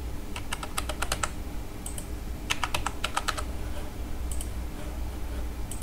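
Keystrokes on a computer keyboard: two quick runs of typing about a second apart, a short password typed and then typed again to confirm, followed by a few single key presses.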